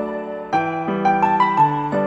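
Background music: a gentle piano tune of repeated notes and chords, with a new phrase starting about half a second in.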